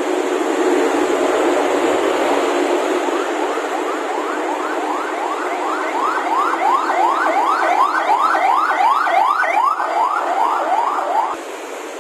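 Road traffic noise from the busy road below, then a siren yelping in quick rising sweeps, about three a second, for roughly seven seconds before cutting off suddenly near the end.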